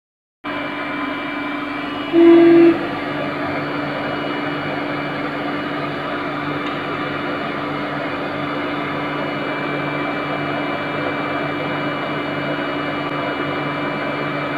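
Mindray BA-88A semi-automatic chemistry analyzer running with a steady hum carrying several fixed tones while it takes a kinetic absorbance reading. One short beep sounds about two seconds in.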